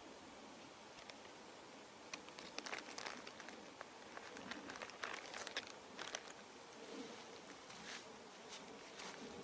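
Faint crinkling of a plastic snack package being handled, with scattered crackles that come and go over several seconds.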